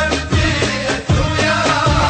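Music with a heavy, regular beat.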